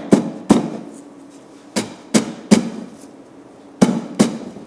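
Scutching flax by hand: a wooden scutching knife (espadela) strikes a hank of flax hung over a cork stand, beating the woody shives out of the fibre. Seven sharp whacks come in quick groups of two, three and two.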